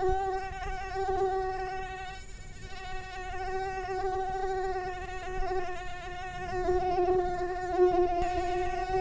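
Mosquito wings buzzing in flight: a persistent high-pitched whine that wavers slightly in pitch and loudness, briefly weakening a little after two seconds in.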